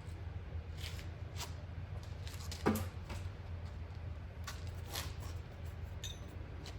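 Scattered light clicks and small knocks of hands and tools handling a bicycle front wheel hub being greased, with one louder knock about two and a half seconds in, over a steady low hum.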